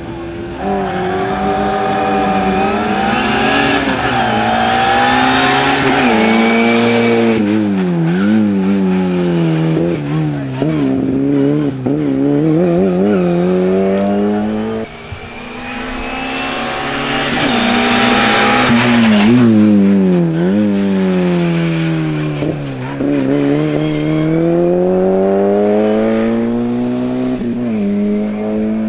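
Race car's engine revving hard and falling back again and again as it accelerates and brakes through a slalom course, with a run of quick throttle lifts midway and two long climbs to high revs.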